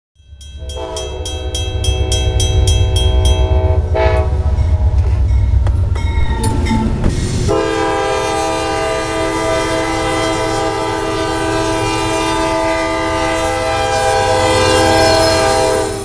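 A diesel freight locomotive's air horn blowing at a grade crossing in several blasts, the last one long and steady from about seven seconds in, over the low rumble of the locomotive engines. A crossing bell dings about three times a second through the first few seconds.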